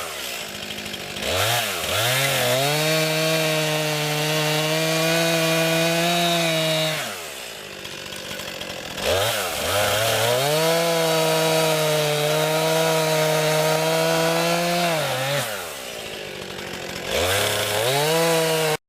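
50 cc two-stroke chainsaw cutting wood. It is held at full throttle for two long cuts of about five seconds each and drops back to a quieter idle between them. A short rev comes near the end, then the sound stops abruptly.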